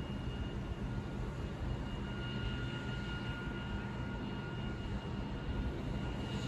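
Vossloh G1206 diesel locomotive running steadily with a low engine drone and a thin, steady high tone over it.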